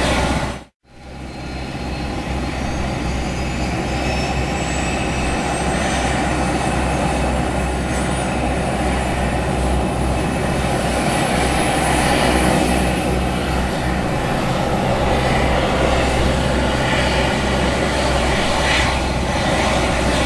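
Helicopter turbine engine and rotor noise heard from inside the cabin during start-up. It drops out briefly near the start, then comes back and builds, with a high whine that climbs slowly as the turbine spools up, and then settles into steady running.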